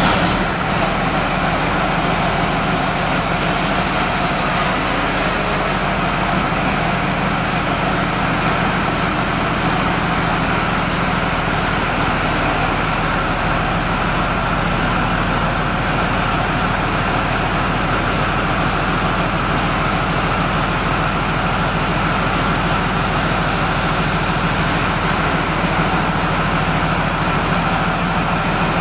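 Leopard 2A4 tank's MTU MB 873 twin-turbo V12 diesel running at a steady idle, just after starting, with an even low drone.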